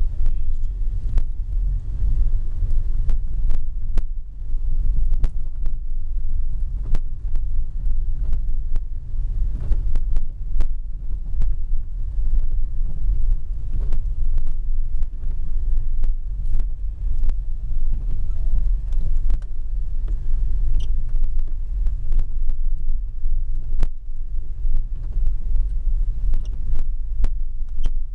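Car cabin noise while driving on a wet road: a loud, steady low rumble, with many short sharp taps scattered through it.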